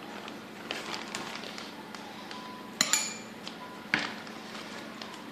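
Plastic zip-top bag of marinade rustling as pineapple slices are lifted out, with two sharp clinks against a ceramic bowl, the louder one about three seconds in and a second one about a second later.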